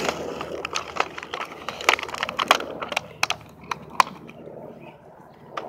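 Plastic toy packaging being torn open by hand: a run of sharp cracks and crinkles that thins out after about three seconds into a few single snaps.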